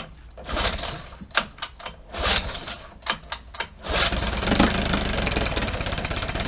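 1978 Evinrude 9.9 two-stroke outboard pull-started without choke: a few pulls of the starter cord, then it catches about four seconds in and runs steadily.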